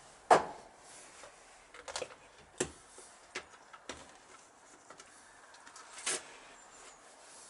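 Handling noises of hand work on parts and tools: a sharp knock about a third of a second in, then scattered light clicks and taps.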